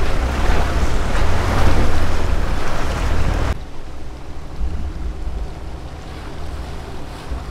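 4x4 off-road vehicle on a river trail: a loud rushing noise over a low rumble, cutting off abruptly about three and a half seconds in to a quieter, steady rumble.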